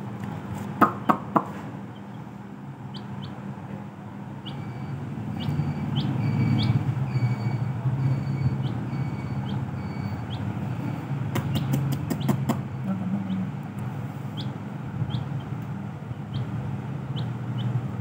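Young chicks peeping in short, high chirps every second or so, with a few sharp taps of beaks against a steel water bowl about a second in and again a little past the middle. A steady low hum runs underneath.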